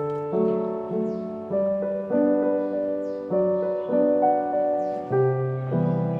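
Background music: soft piano-like chords changing about once a second.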